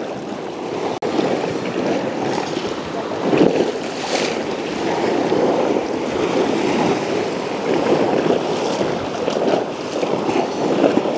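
Sea waves surging and splashing against a rock ledge: a steady rushing wash of water.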